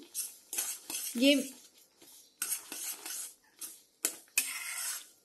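Wooden spatula stirring thickening strawberry jam in a stainless steel pan, scraping over the metal in irregular strokes, with a few sharp knocks against the pan in the second half.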